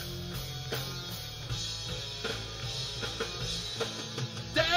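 Heavy rock backing track playing between vocal lines: drums keeping a steady beat under bass and guitar. A sung note with wide vibrato comes in just before the end.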